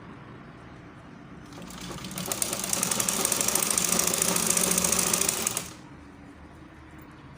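Sewing machine stitching a zipper onto a blouse: it speeds up about a second and a half in, runs fast and steady for about four seconds, then stops suddenly.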